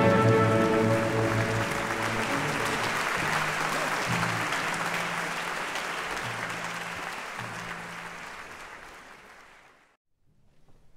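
Audience applauding, the clapping fading away to near silence about ten seconds in, with a few low held music notes beneath it.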